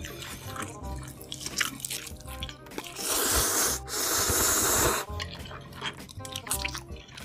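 A man slurping a mouthful of spicy red noodles: one loud, noisy slurp lasting about two seconds, midway. Before it come wet mouth clicks, all over background music.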